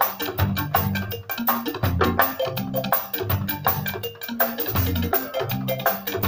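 A band playing live: a djembe hand drum and a drum kit keep a fast, busy rhythm over a low melodic bass part.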